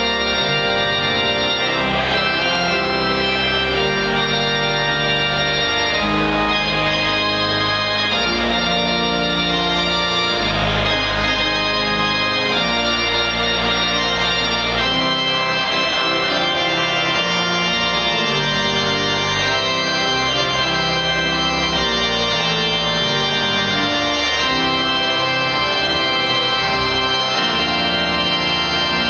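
Pipe organ played on manuals and pedals: sustained full chords over deep pedal bass notes, the harmony changing every second or two at a steady level.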